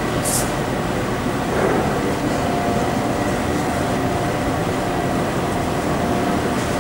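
Fire engine's diesel engine idling: a steady low rumble, with a faint steady whine above it.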